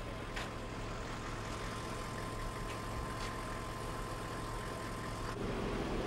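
A vehicle engine idling with a steady low hum, under a thin steady whine that cuts off about five seconds in.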